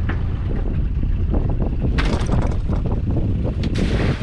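Wind buffeting the microphone on a small open boat at sea, a steady low rumble, with a couple of sharp knocks about halfway through and near the end.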